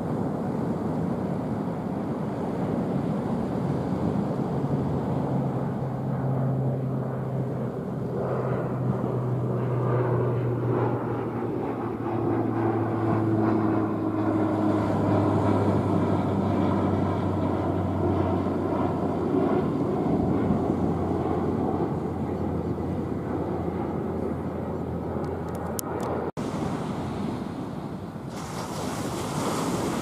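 An airliner passing over, its engine drone slowly falling in pitch, above the steady wash of breaking surf. A cut about 26 seconds in leaves only surf and wind noise.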